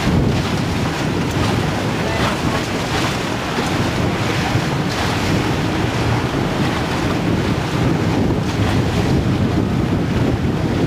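Wind buffeting the microphone over the steady rush and slap of choppy river water against the bow of a moving inflatable raft.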